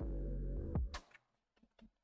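Electronic background music with a deep, steady bass. It drops away about a second in, leaving only a few faint blips.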